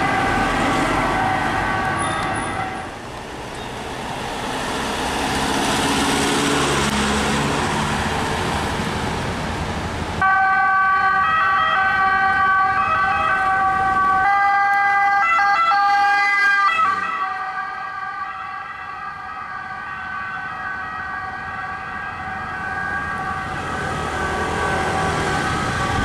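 Emergency vehicle sirens sounding through city traffic, with engine and road noise underneath. The siren is loudest after a sudden jump about ten seconds in and fades away after about seventeen seconds.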